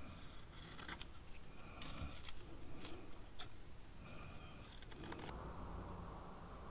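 Scissors cutting carbon fiber twill cloth: a run of crisp snips and longer cuts through the woven fibre, ending about five seconds in.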